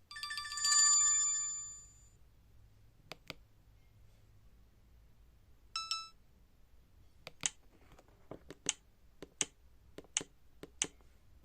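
A short electronic ringtone chime from an Alcatel OT-385JA mobile phone rings out and fades within about two seconds. Then comes a single click, a brief beep near the middle, and a run of about eight sharp clicks in the last few seconds.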